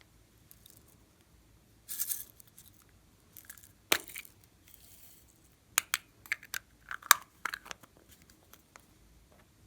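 Slime being squeezed and worked by hand, giving short crackling bursts and sharp popping clicks, with a quick run of pops in the second half.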